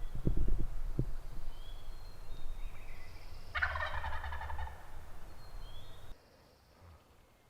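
A wild turkey gobbler gobbles once, a rattling call lasting about a second, a little over three seconds in. A few low thumps come in the first second, and small birds chirp faintly.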